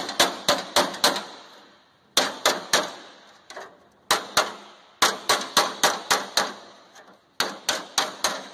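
Body hammer striking the bottom edge of a steel car door against a handheld dolly, each blow a sharp metallic clang that rings out briefly. The blows come in quick runs of several, about four a second, with pauses of about a second between runs.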